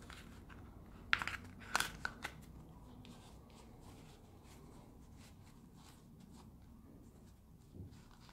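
Hands fitting a crocheted yarn bootie over a clear plastic shoe form: a few short plastic clicks and crinkles between one and two seconds in, then faint handling rustle and a soft bump near the end.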